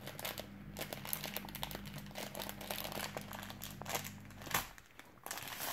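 Small plastic bag of sand being pulled open and handled, crinkling with a run of small irregular crackles that pause briefly near the end.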